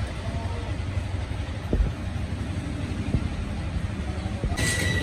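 Stick welding arc crackling on a truck axle housing tube over a steady low rumble. Near the end, sharp metallic taps with a steady ringing tone begin.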